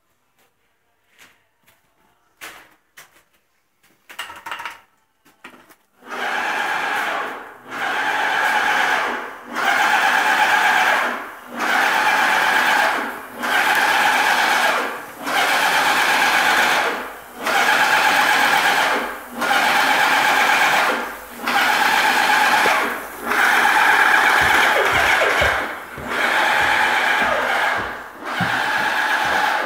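Scattered clicks and knocks, then about six seconds in a small motor starts and runs in repeated surges of about two seconds each, with brief dips between.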